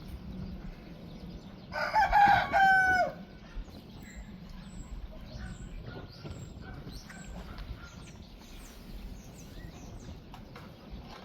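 A rooster crows once, about two seconds in, its held note dropping in pitch at the end. Small birds chirp faintly afterwards.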